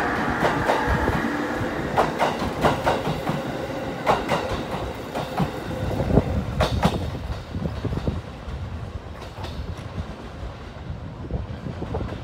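JR Kyushu 811 series electric train pulling out of the station and picking up speed: its wheels clack over rail joints and points, with a steady motor tone fading in the first seconds. After about seven seconds the last car has passed and the sound dies down to a lower rumble.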